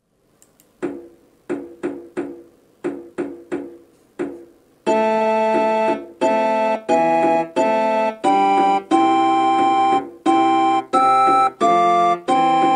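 Keyboard music: a run of short struck notes that each fade away, then from about five seconds in a series of held organ-like chords, each one cut off sharply before the next.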